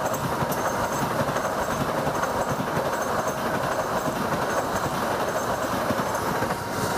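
Stainless-steel passenger coaches of a KAI train passing close by on the track, a steady noise of wheels running on the rails.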